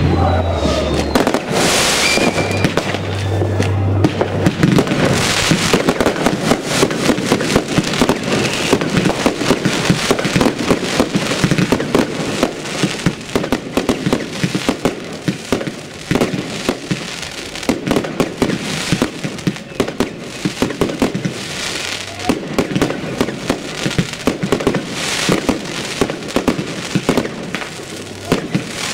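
Consumer fireworks battery (cake) firing aerial shots: a dense, continuous barrage of launch thumps and bursting bangs, with a few louder hissing rushes.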